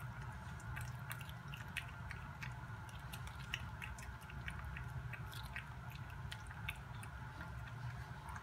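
A cat chewing pieces of cooked shrimp: many small irregular clicks of eating, over a steady low hum.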